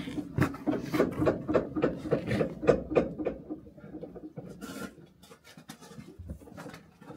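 Rapid rhythmic mechanical clicking with rubbing, about five clicks a second for the first three seconds, then fading to quieter, scattered scraping.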